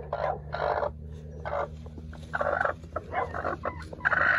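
Broody hen calling in about six short, harsh bursts as a hand reaches under her on the nest: the protest of a broody hen guarding her eggs.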